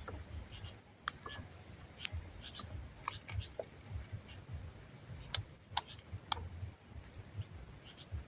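Baby bird giving short, faint, repeated chirps, with a handful of sharp clicks scattered among them.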